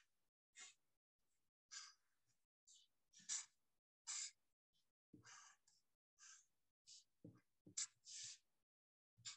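Black marker pen drawing on paper: about ten faint, short strokes a second or less apart, as lines are drawn and then hatched in quick succession.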